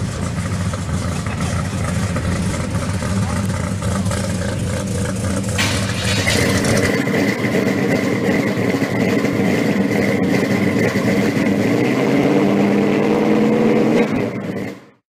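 Engine of a 1970 Plymouth Cuda pro street car running as the car drives. It is cut off abruptly about five and a half seconds in. A different steady sound follows, with a high whine and a lower rumble that rises in pitch near the end before fading out.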